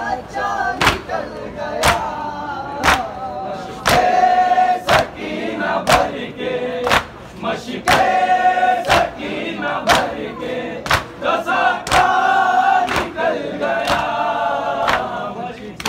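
A group of men chanting a Muharram noha in unison, with a sharp chest-beat of matam from the whole group about once a second keeping the beat.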